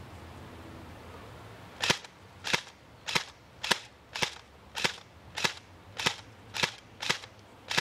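Airsoft gun firing semi-automatic, single shots in a steady string, about eleven sharp cracks roughly two a second, starting about two seconds in.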